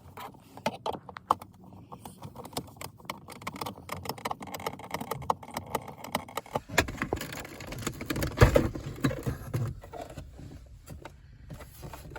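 Clicking, rattling and knocking of plastic interior trim and hand tools as a car's center console is worked loose. Small clicks come first, then heavier rustling and knocks past the middle, with one loud knock about two-thirds of the way through.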